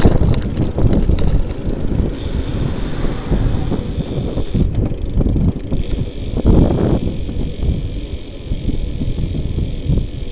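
Wind buffeting the microphone of a bicycle-mounted action camera while riding, heavy and gusty, with tyre and road rumble beneath it and a faint steady high tone.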